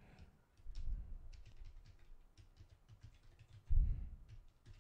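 Computer keyboard keys clicking in a quick, uneven run of keystrokes as code is typed. Two dull low thumps are heard under the typing, one about a second in and a louder one near the end.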